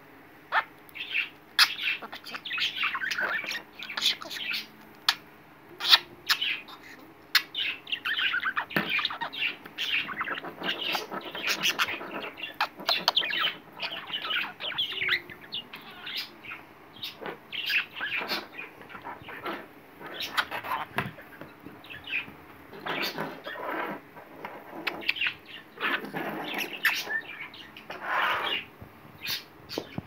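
Pet budgerigar chattering in a near-continuous run of quick chirps and warbles, with scattered sharp clicks mixed in.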